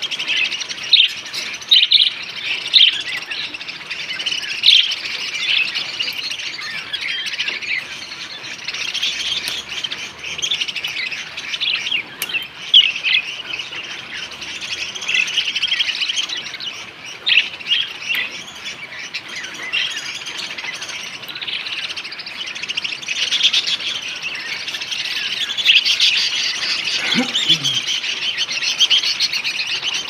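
A flock of budgerigars chattering and chirping without a break, many birds at once, with sharp louder calls standing out every second or two.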